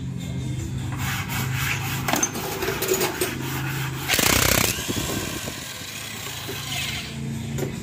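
DCA APB20C electric impact wrench running in bursts, hammering on an engine bolt through a long socket, with a louder burst about four seconds in.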